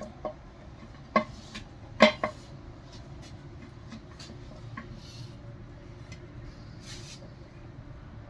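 Metal parts clinking and clanking against each other: a few sharp metallic knocks with a brief ring, the two loudest about one and two seconds in, then lighter taps.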